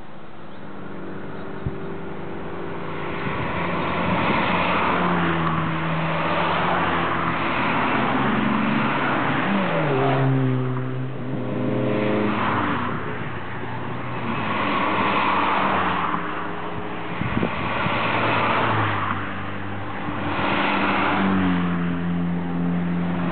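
Several Volkswagen Scirocco cars driving past one after another, each engine accelerating, its pitch climbing and then dropping at gear changes, with the rush of tyres and exhaust swelling and fading as each car goes by.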